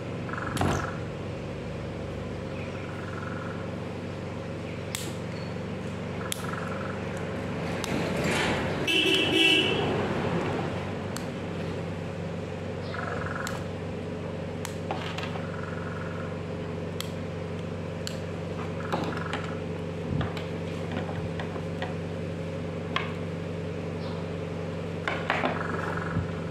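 Light clicks and taps of a cordless drill's gearbox, chuck and plastic housing being handled and fitted together, over a steady background hum. About 8 to 10 seconds in, a louder swell rises and falls, carrying a brief high tone.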